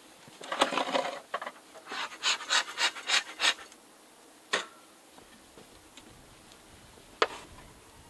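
Bee smoker's bellows being pumped, a quick run of about six puffs, roughly three a second, in the first half. Then two sharp knocks on the wooden hive boxes, a few seconds apart.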